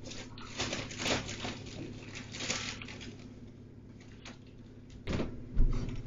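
Clear plastic bag of snack food crinkling and rustling as a hand rummages in it. A louder sudden thump with a low boom comes near the end.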